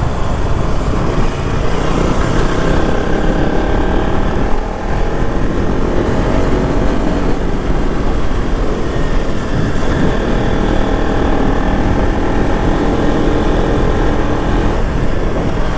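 KTM RC 200's single-cylinder engine running at a steady road speed under way, with wind rushing over the microphone.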